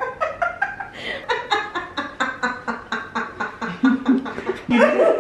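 A man laughing hard and without a break, in a long run of quick ha-ha bursts, about four a second.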